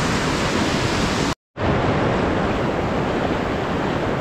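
Reservoir overflow water rushing steadily through a spillway channel, an even, loud wash of water noise. The sound drops out completely for a moment about a second and a half in, then carries on.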